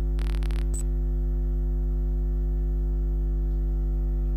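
Steady electrical mains hum with a stack of overtones. A short burst of hiss comes near the start, followed by a click just under a second in.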